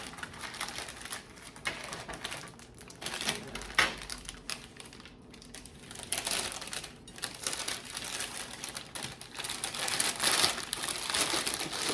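Handling noises as a cheesecake is worked out of its springform pan: irregular rustling and crinkling with many small clicks and knocks.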